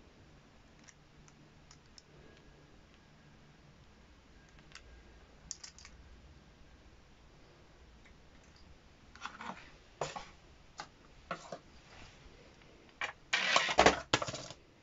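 Small plastic toy monster truck and its plastic key launcher being handled: scattered light clicks that grow busier partway through, then a loud rattling clatter lasting about a second near the end.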